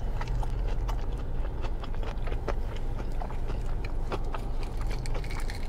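Close-miked chewing of a mouthful of battered fried fish: irregular wet clicks and soft crunches.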